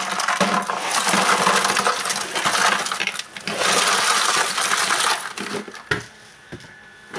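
Broken ice cubes poured into the gap between a stainless steel ice-cream can and its outer bucket, clattering and clinking against the metal in two spells. The pouring stops about five and a half seconds in. The ice is being packed around the can to freeze the ice cream.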